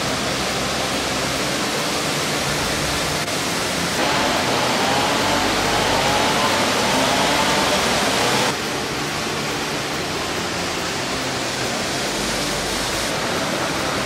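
Waterfall and cascading stream water rushing over rocks in a steady, dense roar. It gets louder about four seconds in and drops back a few seconds later.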